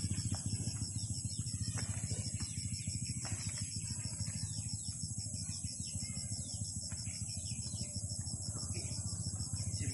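Insects trilling steadily in a high, fast-pulsing chorus, with scattered short bird chirps and a steady low rumble underneath.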